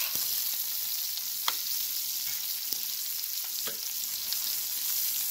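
Pork butt steaks and yellow squash sizzling on a hot Blackstone flat-top griddle, a steady high hiss. A few sharp clicks of metal tongs come through it.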